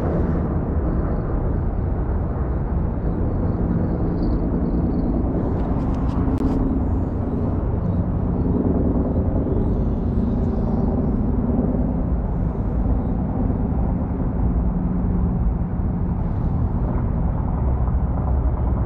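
A steady, loud low rumble of outdoor noise, with a few brief clicks about six seconds in.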